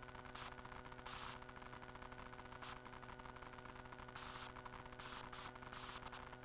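Faint steady hiss and electrical hum from a police dash-cam's audio channel, broken every second or two by short bursts of static.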